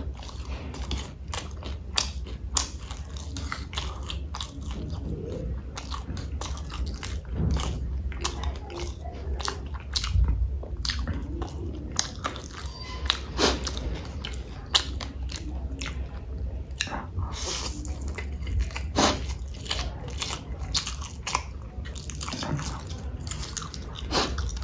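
A person eating close to the microphone: chewing and biting with many irregular, sharp wet clicks and smacks, over a low steady hum.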